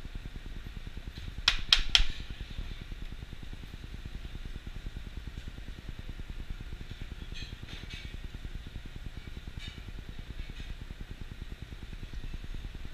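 A squeeze bottle of olive oil being worked over a tuna steak, with three sharp clicks about a second and a half in and a few fainter ones later. Under it runs a steady low kitchen hum.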